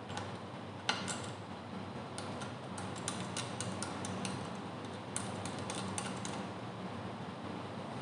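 Small metallic clicks and ticks as a metal circular cable connector is pushed onto its socket and its threaded coupling ring is screwed tight by hand. The clicks come irregularly from about a second in until about six seconds in, with a slightly louder click near the start.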